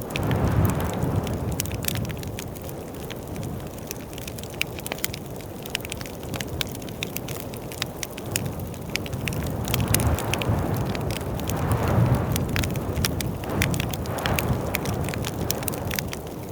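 Wood fire in a fireplace crackling and popping, with sharp snaps scattered throughout over a low rumble of flame that swells up near the start and again several times in the second half.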